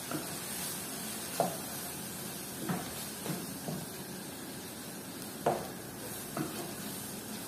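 Mushrooms and chicken sizzling steadily in a frying pan while being stir-fried, with a spatula knocking against the pan several times.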